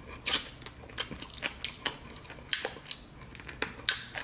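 Close-miked chewing of crispy Shake 'n Bake oven-baked chicken: an irregular string of sharp crunches and crackles from the breaded coating.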